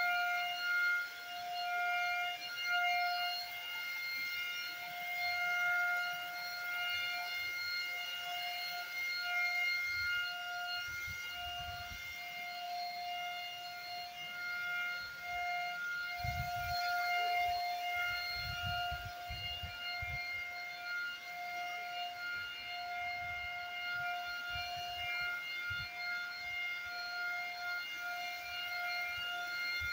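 Handheld electric paint spray gun running with a steady high-pitched whine while spraying wood polish; the whine wavers a little in strength, and a few low bumps come through in the middle.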